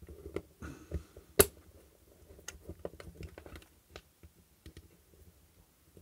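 Small, scattered clicks and taps of insulation-tester probe tips and their leads being handled and placed against a wall socket's terminals, the sharpest click about a second and a half in.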